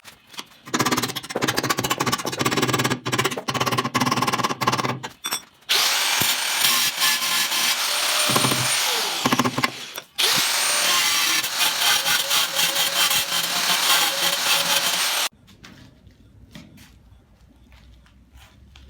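Angle grinder with its blade cutting into a tile to make a round hole, running in several long stretches that briefly drop away a few times and restart. It cuts off sharply about 15 seconds in, leaving a few light clicks.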